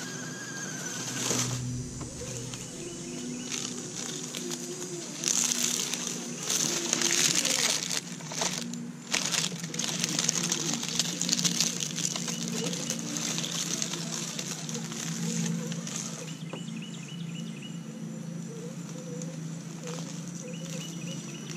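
Radio-controlled scale truck driving through a pile of dry leaves: the leaves crackle and rustle under its tyres, loudest from about five to nine seconds in as it passes close. Under this runs a low steady hum from the truck's motor, and a few short chirping trills come from birds.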